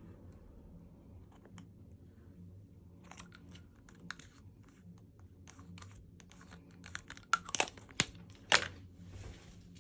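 Packaging being handled and opened: quiet at first, then tearing and crinkling with scattered clicks. A few sharp, loud snaps come near the end.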